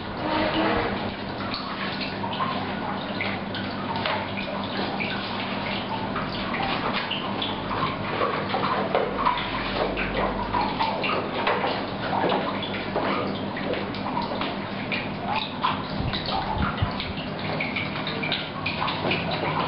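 Water running and splashing steadily, like a tap pouring into a tank, over a faint low steady hum.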